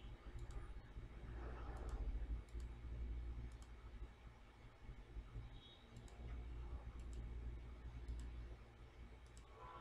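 Computer mouse clicking: about a dozen irregularly spaced clicks over a faint steady low hum.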